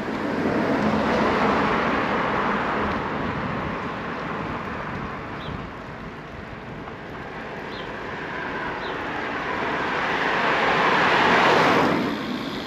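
Road traffic noise, swelling as vehicles pass close by, loudest just before the end, then falling away sharply.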